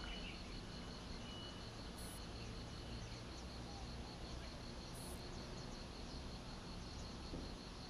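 Outdoor ambience: insects chirping in an even, repeating pulse over a steady low background rumble.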